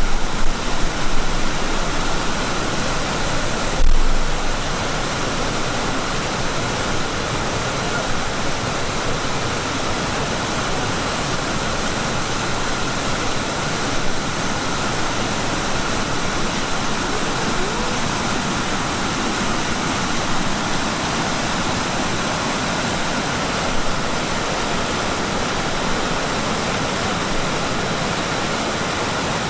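Waterfall rushing steadily, with a brief low thump about four seconds in.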